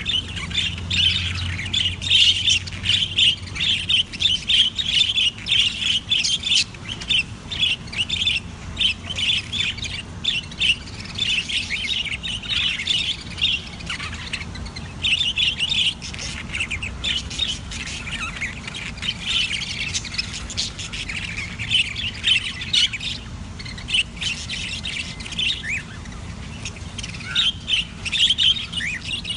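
Budgerigars chattering and chirping nonstop in rapid, high, overlapping calls, with only short breaks.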